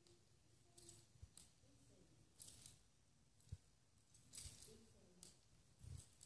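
Faint footfalls of a ridden horse in soft indoor arena footing: a scatter of soft scuffs and a few dull thuds at an uneven pace.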